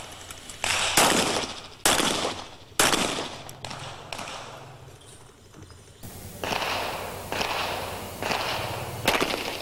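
Semi-automatic pistol shots fired at a target moving across the range, about one a second, each a sharp crack with a short echo. A quieter pause comes midway, and then a further string of shots.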